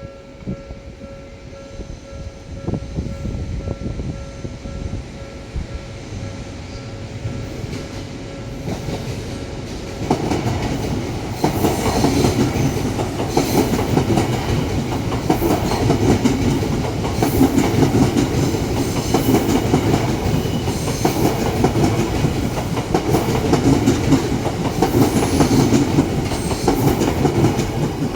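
Odakyu Electric Railway commuter train approaching and passing slowly over a level crossing. About ten seconds in it grows much louder, with the wheels clacking over rail joints in regular pairs every second or two.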